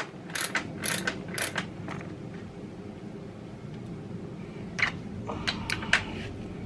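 Hand ratchet wrench clicking as the fork's top cap is tightened down over the new spring: a quick run of clicks at the start, then another run about five seconds in.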